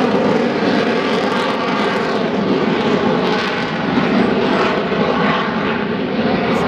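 Harrier jump jet's Rolls-Royce Pegasus turbofan running loud and steady as the jet flies past overhead, a dense jet roar with a faint steady tone through it.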